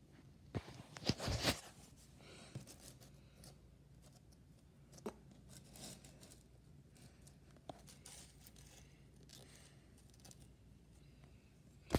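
Jigsaw puzzle pieces being handled and slid on a wooden floor: a brief rustling scrape about a second in, then a few light clicks and faint shuffling.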